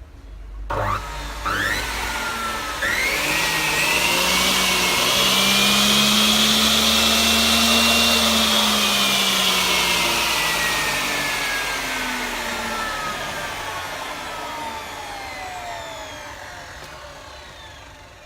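A 305 mm aluminium cutting saw is switched on: the motor and blade whine quickly up to speed about a second in and run loudly for several seconds. The whine then falls slowly and steadily in pitch as the blade winds down.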